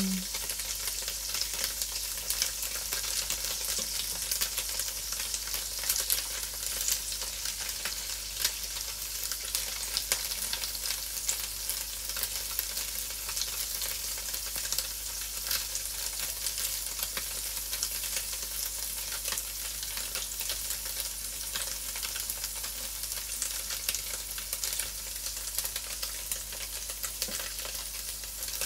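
Cubes of tofu frying in oil in a non-stick pan: a steady sizzle with many light crackles, as the pieces are stirred and turned with a spatula.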